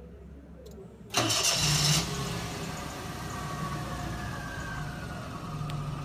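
Car engine started remotely from a key fob: the starter cranks for about a second, about a second in, then the engine catches and idles steadily, its idle gradually settling lower.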